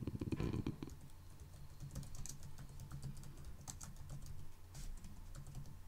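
Typing on a computer keyboard: a run of irregular, quick key clicks as a phrase is typed, over a steady low hum.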